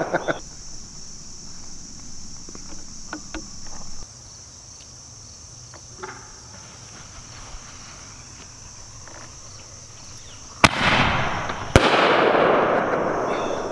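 Consumer firework mortar shell: two sharp bangs about a second apart near the end, followed by a loud hissing rush that fades over a couple of seconds. Before that, the tail of an earlier burst dies away in a few crackles, and insects chirr steadily in between.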